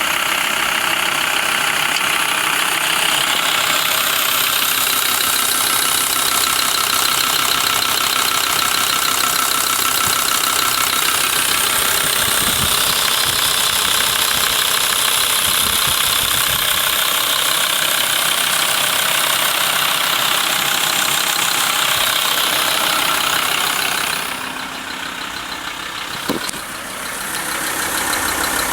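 Volkswagen LT 35's 2.5 TDI five-cylinder diesel (AHD) idling warm with a steady knock, which the owner places around the camshaft; it persists after a new vacuum pump and plunger were fitted. The sound drops in level for the last few seconds.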